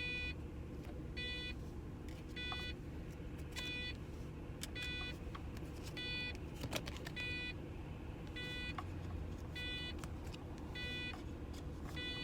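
Car's warning chime beeping over and over, one short high beep about every 1.2 seconds, over a low steady rumble inside the car.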